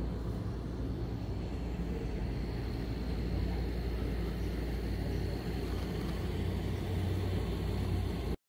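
Steady low mechanical rumble and hum, with a faint thin high tone joining about two seconds in. It cuts off abruptly near the end.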